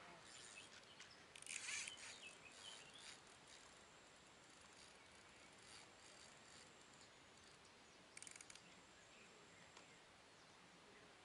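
Near silence: faint open-air riverside ambience, with two brief high chirps, about two seconds in and again about eight seconds in, and a faint steady high whine.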